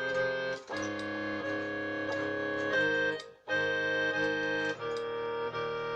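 Casio CTK-3500 keyboard playing its Harmonica 2 voice: sustained chords, held and changing three times, with a brief break about three seconds in.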